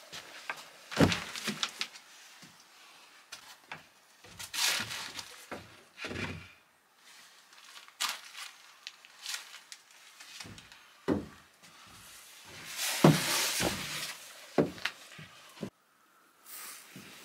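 Irregular wooden knocks and thuds with rustling, as old things are handled and moved about, and footsteps on bare wooden floorboards.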